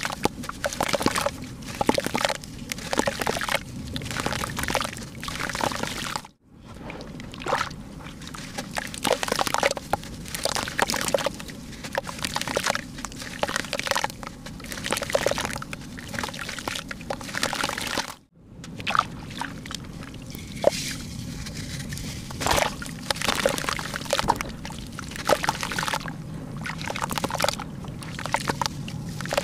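Soaked red dirt crumbled by hand in a tub of water: irregular sloshing and splashing as wet lumps are squeezed, broken and dropped back into the water. The sound drops out briefly twice, about six and eighteen seconds in.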